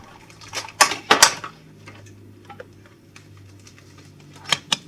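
A few sharp taps and clinks on a mixing bowl: a cluster about a second in and two more near the end.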